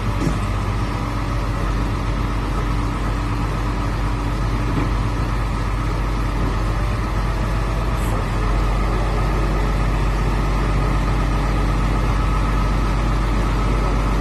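Diesel engine of an XCMG XZ420E horizontal directional drilling rig running steadily with a constant low drone, rising a little in level about eight seconds in.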